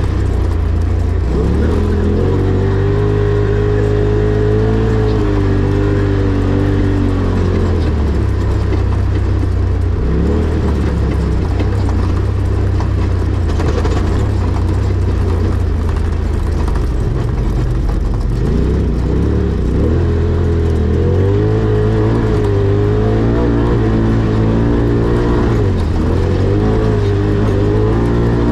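Rally car engine heard from inside the car, pulling hard. Its pitch climbs and drops again and again with throttle and gear changes.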